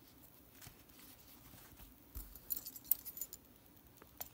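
Light metallic clicks and clinks from the leather holder's metal snap fastener and strap being handled: a quick cluster about two seconds in and another click near the end.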